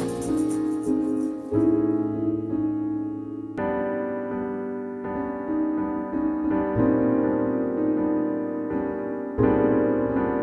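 Background music: slow piano chords, each held and a new one struck every second or two, with no beat.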